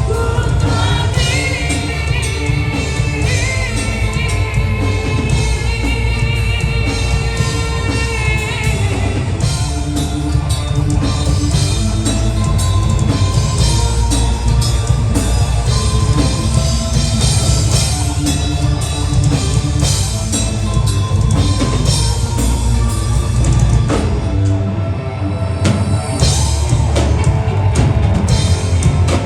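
Live gothic metal band playing at full volume: drum kit and band, with a held, wavering vocal line for the first eight seconds or so. The bass drops out briefly about 25 seconds in, then the full band comes back.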